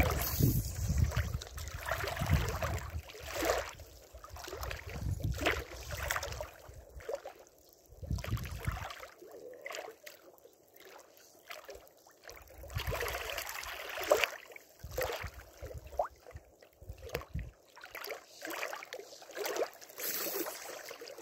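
Choppy lake water lapping and splashing right at the microphone in irregular surges, with gusts of wind rumbling on the microphone.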